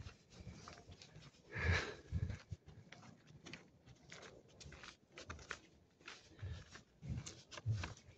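Footsteps on a dirt forest path: dull thumps, irregular at first and about two a second near the end, with rustling and small clicks from the handheld phone and one louder rustle about two seconds in.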